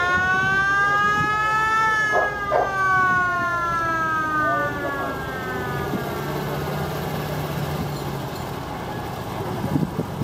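A siren wailing: its pitch climbs slowly over the first two seconds, then winds down and fades out by about six seconds in. Vintage military vehicles' engines run underneath as they pass.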